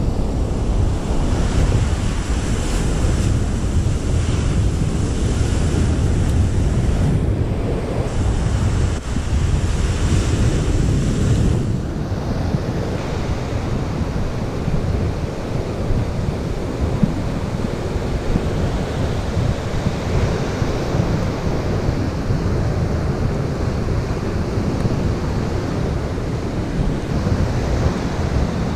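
Surf breaking and washing up the beach, with wind buffeting the microphone as a steady low rumble.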